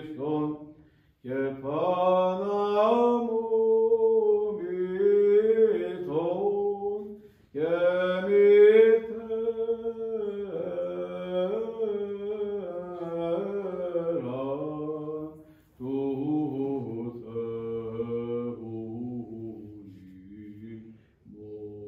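Orthodox liturgical chant sung by a single male voice in long, melismatic phrases, breaking off briefly about a second in, around seven and a half seconds, near sixteen seconds and again near the end.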